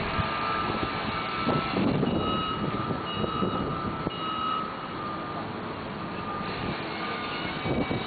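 Steady outdoor traffic din with a high electronic beeping that sounds in short spells of under a second, stopping and starting.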